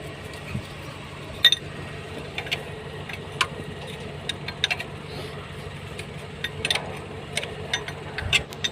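Irregular sharp clicks and metallic clinks of tools being handled during engine work, over a steady low hum.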